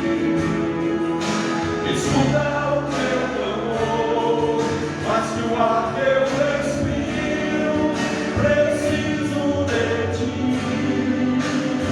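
Gospel worship song: several voices singing together over instrumental backing with a steady beat.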